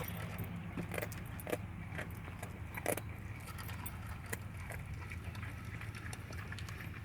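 A dog chewing a head of raw broccoli: irregular crunching clicks and snaps, a few louder ones in the first three seconds, over a steady low hum.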